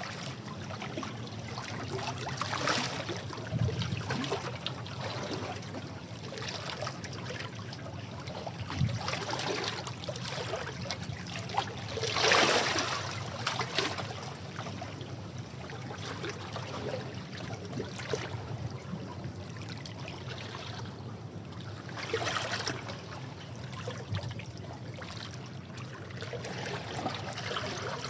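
Sea waves breaking and washing over rocks: a steady low surf rumble with a surge of spray and hiss every several seconds, the strongest about twelve seconds in.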